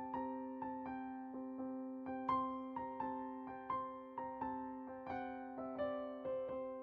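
Gentle background music: soft melodic notes struck a few times a second over a steady held low tone.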